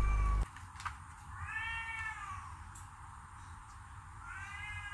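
A cat meowing twice: two drawn-out meows, each rising then falling in pitch, about two and a half seconds apart.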